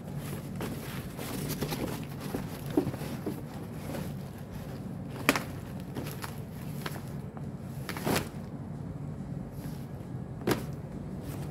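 Cardboard boxes being handled and folded, crackling and rustling, with four sharp cracks or thumps spread through as the cardboard creases and is pressed down.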